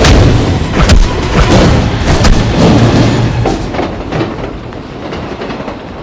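Film fight sound effects: heavy thuds and booms of a body slamming into a wall and floor, several blows in the first three seconds, then the din drops to a lower, steadier rumble.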